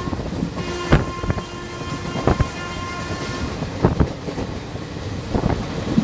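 WAM4 electric locomotive's horn sounding a long continuous honk, heard from a coach of the train it is hauling at speed. It breaks off briefly at the start, sounds again for about three seconds, then stops. Under it runs the steady rumble of the coach's wheels, with irregular clacks as they cross rail joints.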